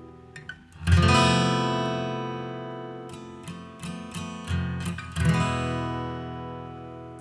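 Background music on acoustic guitar: a chord strummed about a second in and again about five seconds in, each left to ring, with single plucked notes between.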